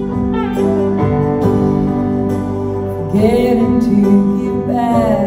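Live rock band playing a slow ballad, held chords under a lead melody line that glides between notes and swells about three seconds in.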